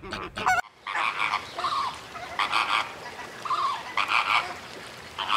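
A flock of flamingos calling, with overlapping honking calls in clusters about once a second, starting just under a second in.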